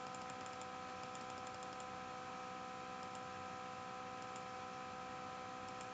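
Steady electrical hum and hiss from the recording setup, with faint scattered clicks from working a computer.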